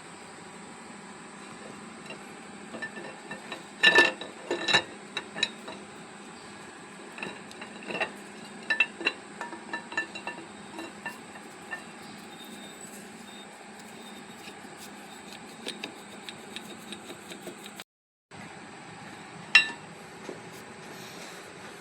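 Irregular metal clinks and taps of tools and tractor engine parts being handled, over a steady background hum, with the loudest clusters about four seconds in and again near the end.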